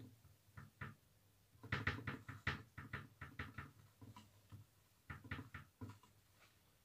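A pen writing on paper: a run of faint, quick scratching strokes, with a short pause near the middle.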